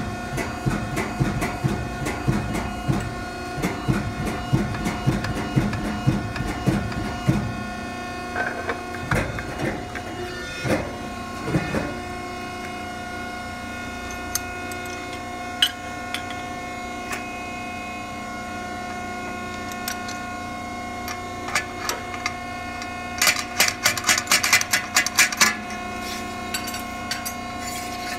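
Press work bending a steel MP5 receiver flat over a polyurethane die: a run of rhythmic low knocks for the first several seconds, then scattered knocks, and a burst of sharp rattling clicks near the end, over a steady hum.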